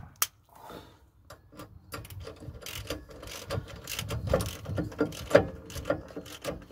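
Socket ratchet clicking as a hex-bit socket turns the small Allen-headed fixing screw that holds the brake disc-drum on the hub. A few separate clicks come first, then quick runs of clicking from about two seconds in, loudest near the end.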